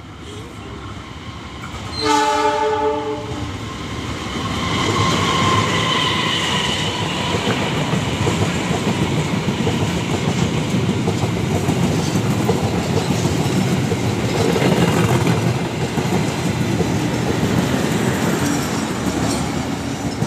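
Indonesian diesel-hauled passenger train: one horn blast about two seconds in, lasting just over a second. Then the locomotive and its coaches pass, a loud steady rumble of wheels on the rails.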